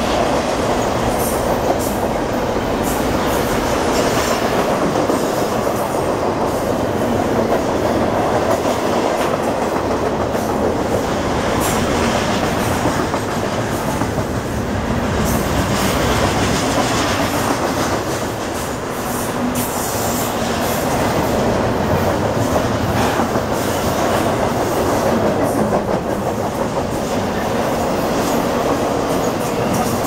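A double-stack intermodal freight train's container-laden well cars rolling steadily past close by. Their wheels make a continuous loud rumble, with occasional sharp clicks as they pass over the rail joints.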